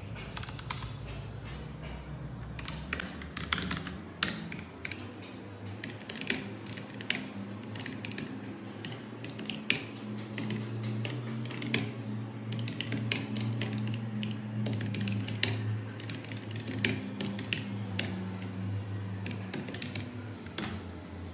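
Typing on a Logitech POP Keys wireless mechanical keyboard with round typewriter-style keycaps over brown tactile switches: a quick, uneven run of keystrokes, with a few much louder than the rest.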